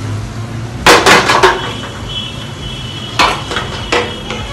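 Stainless steel pan and cooking utensils clattering on a gas stove: a quick cluster of metal clanks about a second in, then two single knocks near the end as the spatula works in the pan.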